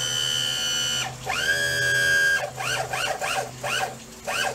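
An animal's high-pitched whining cries: two long drawn-out calls of about a second each, then a quick run of short rising-and-falling cries.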